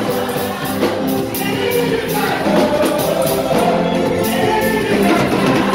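Gospel-style church music: voices singing over a steady, quick percussion beat.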